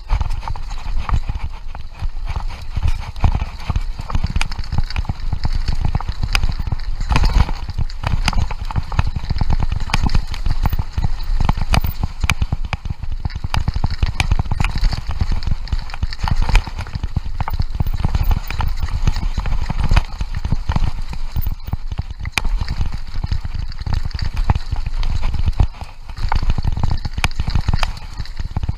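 Mountain bike clattering down a rough gravel trail at speed: tyres crunching on grit, with a constant irregular rattle of knocks from the bike over bumps and a heavy low rumble of wind buffeting the microphone.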